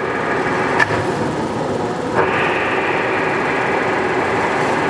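Clausing-Colchester 8052 engine lathe running under power, a steady mechanical whir and gear whine from the spindle and headstock. There is a click about a second in, and about two seconds in the running turns a little louder and brighter.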